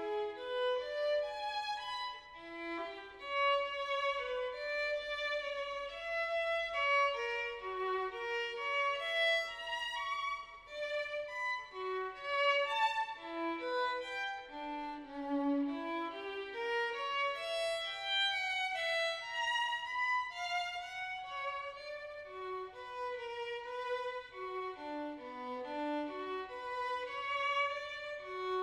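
Music: a violin playing a continuous melody of notes moving up and down.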